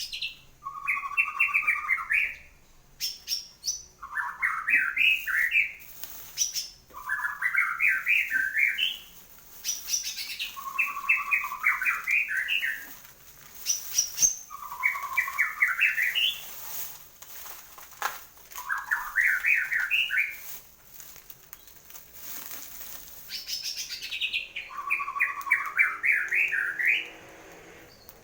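A murai (shama songbird) in full song, freshly out of its moult. It repeats a short phrase about seven times, each a quick run of notes climbing in pitch, with brief high whistles and clicks between the phrases.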